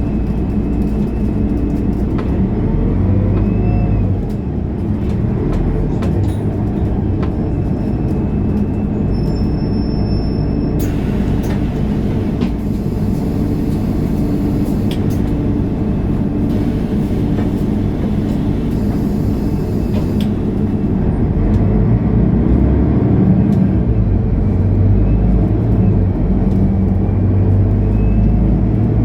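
Mercedes-Benz O530 Citaro Facelift Ü city bus under way, heard on board, its engine running steadily. A hiss rises over it for several seconds midway, and the engine grows louder about three quarters of the way through.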